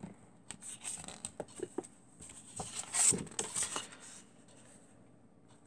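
Sheets of craft card and paper rustling, sliding and tapping against each other as they are handled, in a run of short noises that is loudest about three seconds in and dies away after about four seconds.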